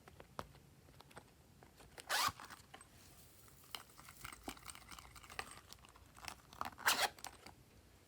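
Glossy slime being squished and stretched by hand, giving scattered small clicks and pops, with two louder, longer squishes, one about two seconds in and one near the end.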